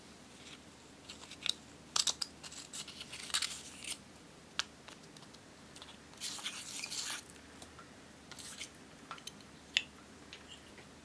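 Pressed powder blush being scraped and broken up in its plastic compact with a thin metal pick: irregular dry, crackly scratching in short bursts, with scattered light clicks.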